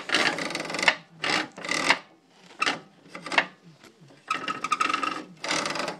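Metal parts scraping and rubbing together as they are handled: a series of short, irregular rasping bursts, with a longer scrape about four seconds in.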